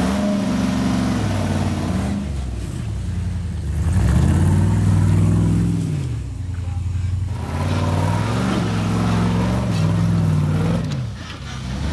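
Rock-crawling Jeep buggy's engine revving up and down in repeated surges as it works up a rock ledge under load.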